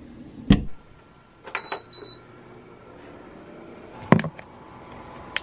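Small household handling sounds: a knock, then two short high-pitched electronic beeps about a second and a half in, then a thump about four seconds in as a phone is set down on a bedside table, and a sharp click near the end.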